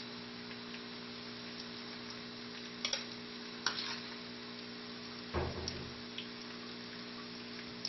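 Tofu cubes frying in oil in a wok, a steady faint sizzle under a constant electrical hum, with a few clinks and scrapes of a metal spatula against the wok as the fried cubes are lifted out.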